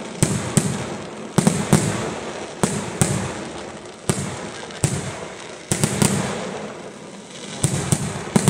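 Fireworks display: a rapid, irregular string of loud bangs from exploding shells, roughly one or two a second and sometimes several in quick succession, each trailing off in a long echoing tail.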